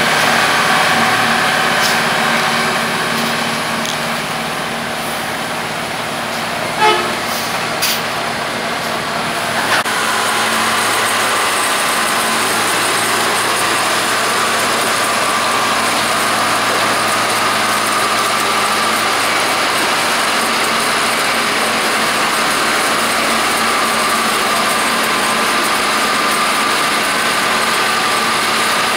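Rotary snowplow running steadily as it blows snow into a dump truck, with its diesel engine and blower making a continuous heavy machine noise. A short horn toot comes about seven seconds in, and the machine noise grows louder about ten seconds in.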